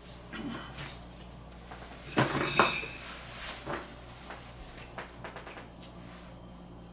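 Dishes and cutlery clinking and knocking at a meal table. A loud clatter comes about two seconds in, followed by scattered lighter knocks.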